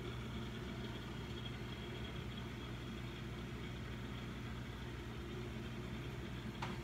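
Steady hum of a reef aquarium's running pumps and equipment, several low tones over a faint hiss, with a single short click near the end.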